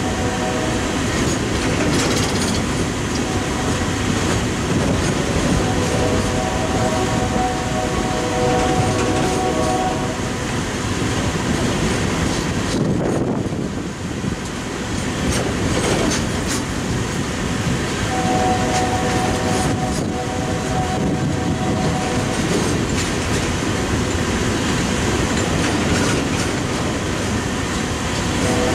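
Coal hopper cars of a freight train rolling past at a grade crossing: a steady rumble and clatter of steel wheels over the rail joints, with a brief lull about halfway through. A steady ringing tone comes and goes several times over the rumble.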